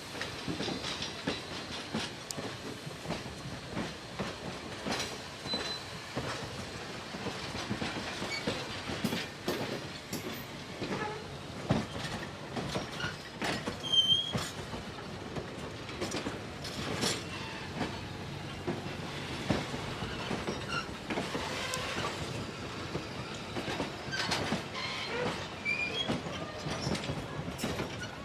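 Vintage passenger coaches rolling slowly past on curved track, their steel wheels clicking over the rail joints, with a few brief high wheel squeals on the curve.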